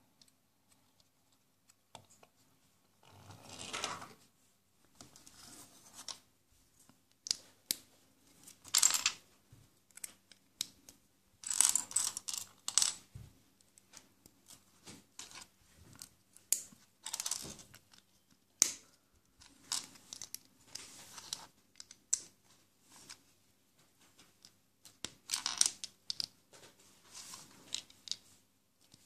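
Lego and Mega Bloks plastic bricks being handled and pressed together by hand: an irregular string of short clicks, snaps and rattles.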